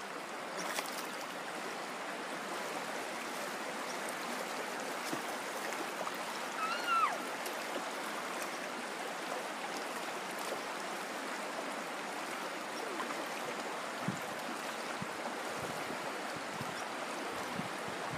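Shallow river water running steadily over rocks and small rapids. A short pitched call rises and falls about seven seconds in.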